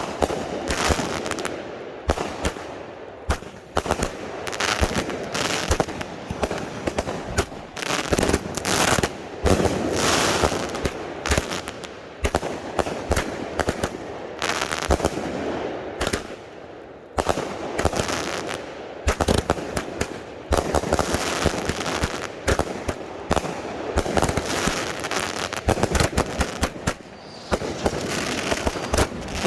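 Consumer firework cakes firing in rapid volleys of shots and bursts, with short lulls about sixteen and nineteen seconds in.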